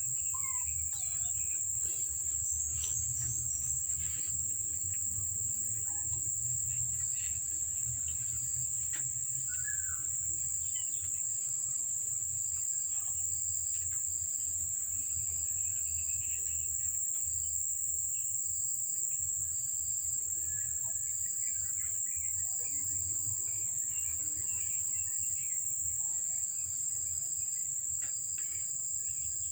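Insects, crickets by the sound of it, giving a steady high-pitched drone, with a second insect chirping in short, even pulses about once a second over it.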